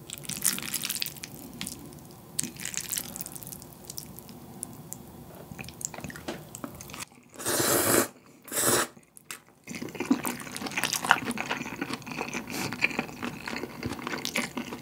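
Close-miked eating sounds: small wet chewing and clicking noises, then two loud slurps of bibim ramen noodles about seven and eight and a half seconds in, followed by more chewing.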